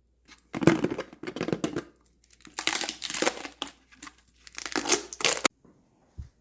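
Crinkling of packaging being handled, in three noisy bursts, then a short low thump near the end.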